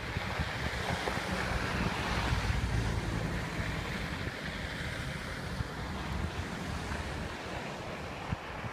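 Wind gusting in a snowstorm and buffeting the microphone: a rushing noise with a low rumble that swells about two seconds in and then eases.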